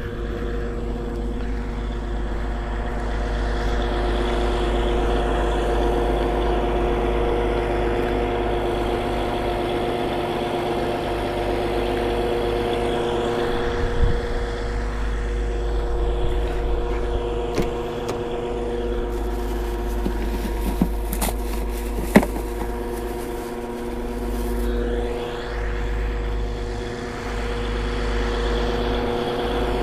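Steady drone of a sand-dredging machine's engine running at a constant pace. A few sharp knocks land over it around the middle.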